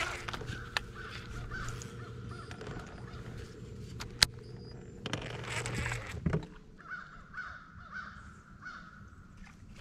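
Crows cawing repeatedly. Under them runs a steady low hum that stops about six seconds in, and there is a single sharp click a little after four seconds.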